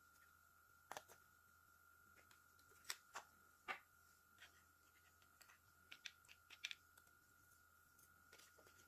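Light clicks and taps of small hair-clipper parts being handled during disassembly, about a dozen spread irregularly, over a faint steady high tone.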